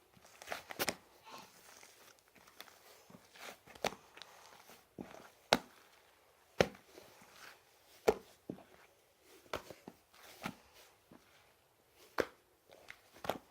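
Slime being squished and worked by hand, giving irregular sharp clicks and pops with quiet gaps between them.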